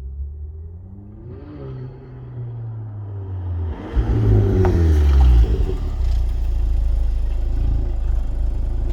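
VW Polo AW GTI's turbocharged 2.0 four-cylinder, with Milltek downpipe and cat-back exhaust, accelerating with rising revs. It grows steadily louder and is loudest about four to five seconds in.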